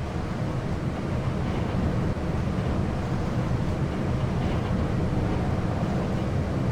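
Lift car travelling in its shaft: a steady low rumble that rises slightly in level.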